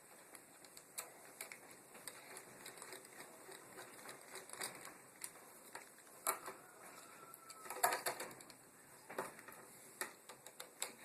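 Light clicks and taps of a screwdriver and wires against an electrical outlet as the wires are unhooked from its terminal screws, with a few louder clicks in the second half.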